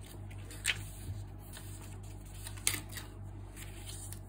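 Paper rustling and sliding as small memo pads are handled on a wooden desk, with two brief louder rustles, one under a second in and one a little before three seconds in, over a steady low hum.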